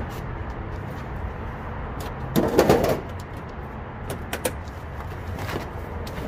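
Objects being handled and shifted by hand: scattered light clicks and knocks, with one louder short sound about two and a half seconds in, over a steady low rumble.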